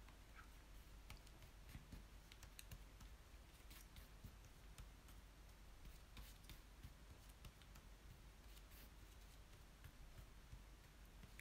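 Near silence, with faint scattered clicks and scrapes of a metal palette knife mixing paint on paper.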